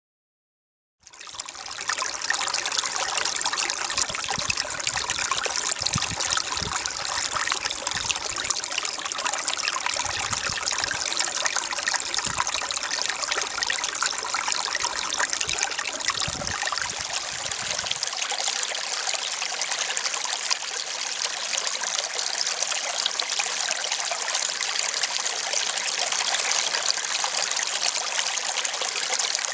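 Shallow rain-fed stream trickling and splashing over rocks and gravel: a steady watery rush that fades in about a second in.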